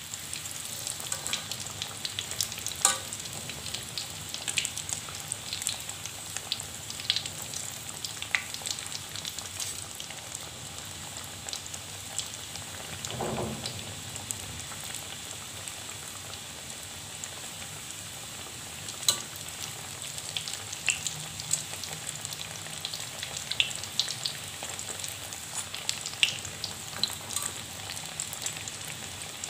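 Pastel pastries deep-frying in a wok of hot oil as they are turned with tongs: a steady sizzle with sharp crackles and pops throughout.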